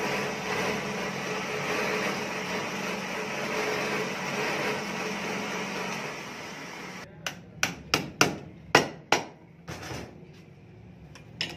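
A bench drill press motor running steadily. Then it gives way to about seven sharp hammer blows in quick succession and one more near the end, struck on a rivet set to fix the lining onto a tractor brake shoe.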